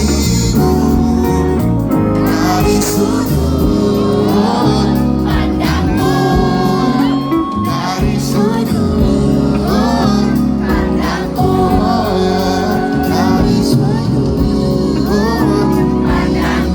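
Live pop band music with a singer's vocal melody over the band.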